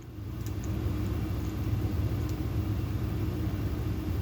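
A low, steady rumble that swells in over the first second and then holds.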